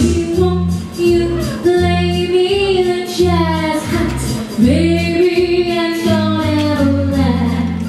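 Stage-show music: a woman singing lead in long held notes over a steady, pulsing bass line.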